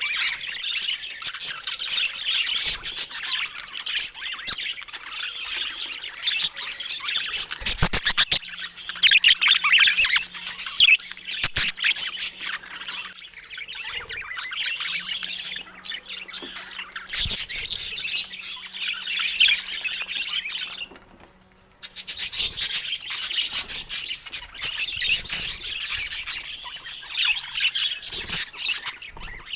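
Pet budgerigars chattering and chirping, a busy continuous warble with a short lull about three-quarters of the way through.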